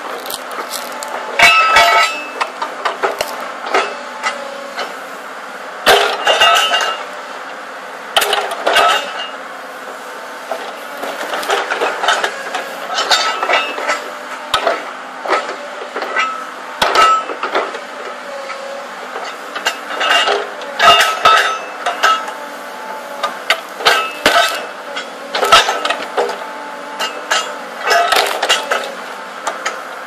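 Excavator engine running steadily while its hydraulic wood-splitter attachment clanks and knocks against metal and the sawn wood rounds it works on, with sharp clanks and cracks coming irregularly and many times over.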